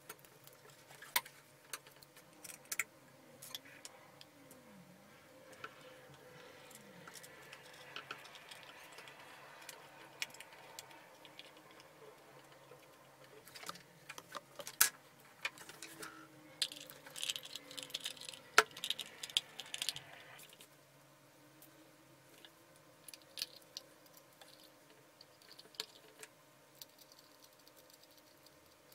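Small metal lamp parts clicking and clinking as they are handled and fitted by hand: scattered sharp taps, with a busier run of light metallic rattling a little past the middle.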